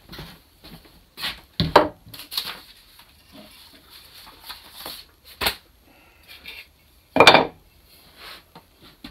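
Footsteps on wooden floorboards and knocks of a wood blank and carving tools set down on a wooden workbench, with paper handled. Several sharp knocks and scrapes, the loudest about two seconds in, and a longer loud rustle or scrape about seven seconds in.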